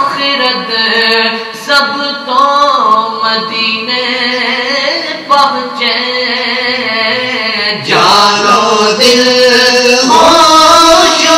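Male voices singing a naat together, long drawn-out notes that glide from pitch to pitch, growing louder about eight seconds in.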